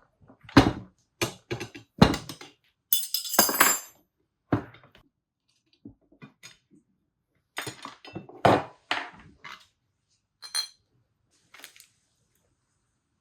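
Metal parts and tools clinking and knocking at a workbench during a swingarm bearing and bushing fit-up, about a dozen irregular clinks and thunks. A brief hissing rustle comes about three seconds in.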